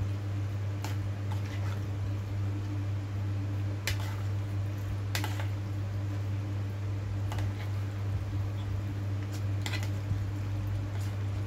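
Hands tossing dressed black fungus (wood ear mushroom) in a plastic bowl: soft wet squishes and a few short sharp clicks, every second or two, over a steady low hum.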